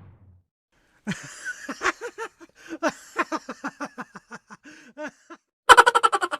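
Laughter sound effect: a person laughing in a long string of short, repeated "ha" syllables for about four seconds. Near the end a louder, much faster burst of rapid pulses starts.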